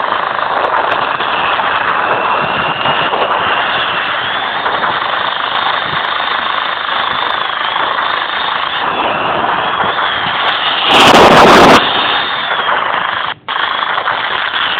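F-16 fighter jet's engine running steadily with a high, slightly wavering turbine whine. About eleven seconds in there is a sudden, louder blast of noise lasting under a second, then a momentary dropout.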